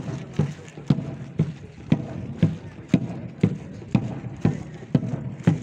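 Marching drum beaten in a steady cadence, about two strokes a second, each stroke a loud low thud.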